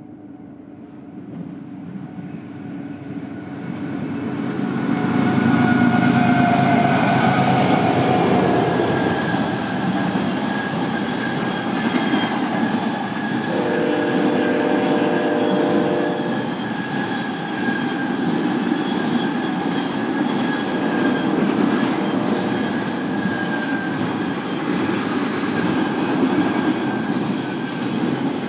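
BNSF intermodal freight train approaching and passing: the locomotives and rolling wheels grow louder over the first five seconds, then settle into a steady rumble of cars going by. About halfway through, a chord of several steady tones sounds for two to three seconds, like a horn blast.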